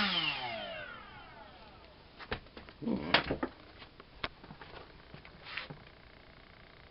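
Brushless QAV2206-1900KV drone motor with a 6x3 propeller spinning down after the throttle is cut, its whine falling in pitch and fading out over about a second and a half. Then a few scattered clicks and knocks, the loudest about three seconds in.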